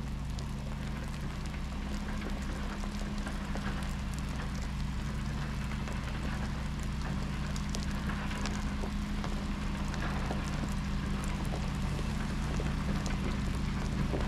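Timber truck's diesel engine running steadily, slowly getting a little louder, with many scattered ticks like raindrops.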